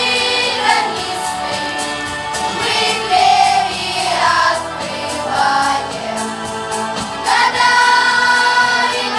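Children's choir singing together, with sustained sung notes; a long note is held from a little past seven seconds in.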